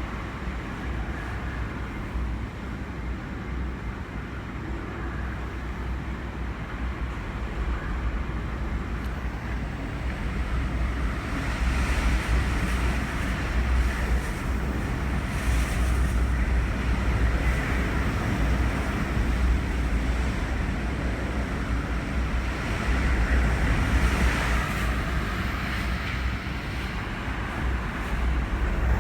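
Typhoon wind gusting and buffeting the microphone, a heavy rumble under a rushing hiss that swells about twelve seconds in and again near the end.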